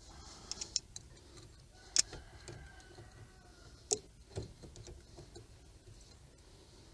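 Scattered metal clicks and clinks of bolts and hand tools being handled. A sharp clink about two seconds in rings briefly, and another comes near four seconds.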